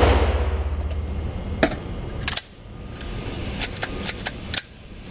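The echo of an AR-15's rapid fire dies away in an indoor range booth. About eight sharp, scattered cracks or clicks follow over the next few seconds.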